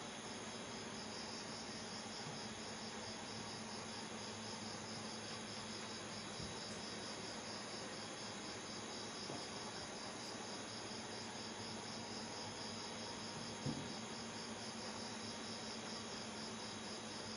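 Crickets chirping steadily in an even, pulsing trill, with a single soft knock about three-quarters of the way through.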